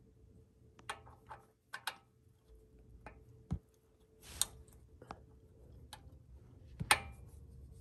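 Irregular light metal clicks and taps as a shift solenoid is handled and pressed into the valve body of a Toyota A340-series automatic transmission, with a brief scrape about four seconds in and the sharpest click near the end. A faint steady hum runs underneath.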